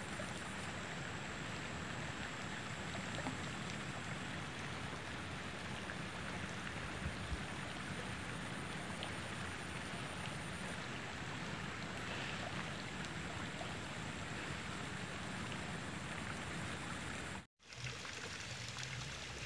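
Steady riverside ambience: an even, soft rush of flowing river water, with a few faint clicks and a brief dropout near the end.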